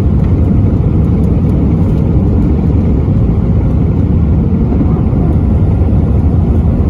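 Jet airliner's engines at takeoff thrust heard inside the cabin: a loud, steady, deep rumble as the plane lifts off the runway and climbs.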